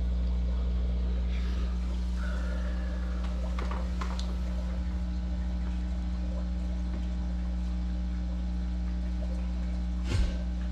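Aquarium equipment running: a steady low hum with bubbling, trickling water from the air stone and filter. A single knock comes near the end.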